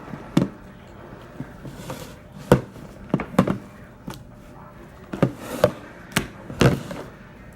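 About nine irregular sharp knocks and pops, some in quick pairs, from hands working the slime and setting down its materials.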